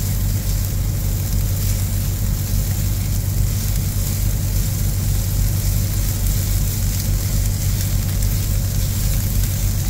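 Onions and mushrooms sizzling in an electric skillet, over a steady low hum.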